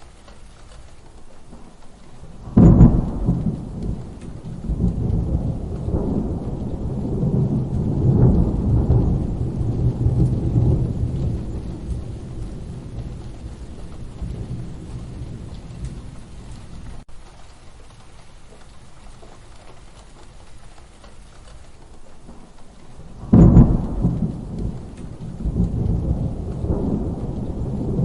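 Steady rain with two thunderclaps. The first breaks sharply about two and a half seconds in and rolls on for about ten seconds. The second breaks a few seconds before the end.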